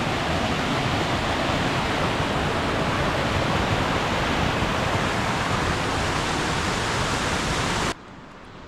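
Whitewater rushing down a steep stone irrigation channel (levada) right beside the path, a loud steady rush. Near the end it drops suddenly to a much quieter rush.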